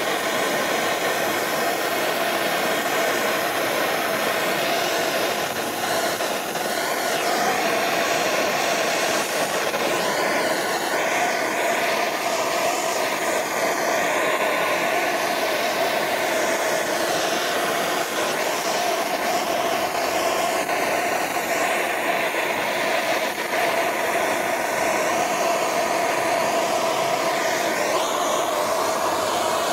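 Hand-held propane torch burning steadily with a constant hiss of the flame. The flame is being played over a carved wooden bear to singe off the wood fuzz.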